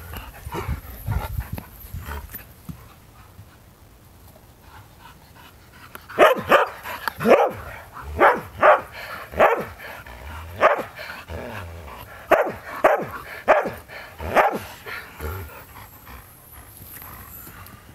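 Dog barking: a run of about a dozen sharp, loud barks, starting about six seconds in and going on for some eight seconds, unevenly spaced about half a second to a second apart.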